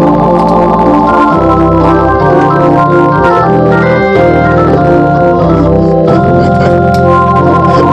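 Two-manual organ playing improvised held chords, with a run of notes climbing and then stepping back down about halfway through.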